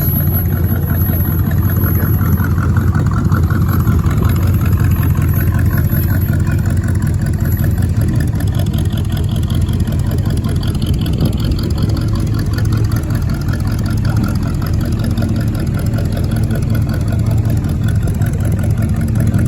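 Rat rod sedan's engine with three two-barrel carburettors, rumbling steadily at idle.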